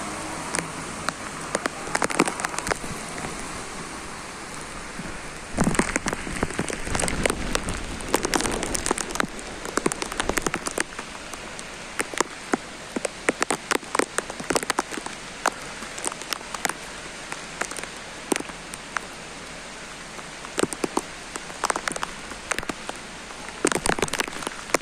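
Heavy monsoon rain pouring down: a steady hiss dense with sharp drop impacts on hard surfaces, growing louder for a moment about six seconds in.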